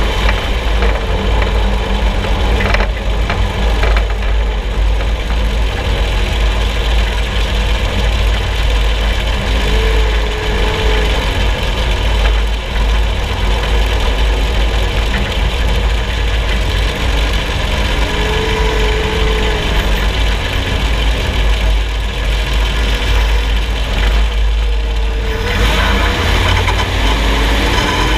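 Loud, steady underbody rumble of a vehicle on the move, heard from under the front axle, hunting a suspension noise. A short tone rises and falls a few times over the rumble.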